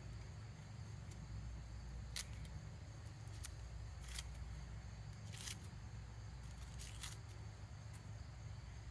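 About five faint, short clicks scattered over a low steady hum.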